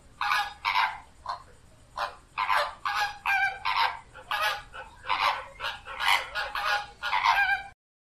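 Flamingos honking: a quick run of short, goose-like honks, two or three a second, stopping abruptly near the end.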